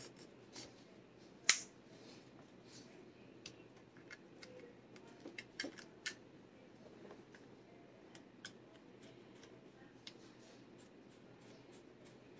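Faint, scattered small clicks and light taps of metal parts as a flip-up sight is fitted onto a shotgun's top rail and a screwdriver works its mount. The sharpest click comes about a second and a half in, with a few more in a cluster around six seconds.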